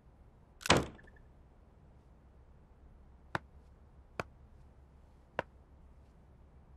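A wooden room door pushed shut, one loud knock with a short latch click, about a second in. Then three sharp taps, about a second apart, of footsteps on a wooden floor.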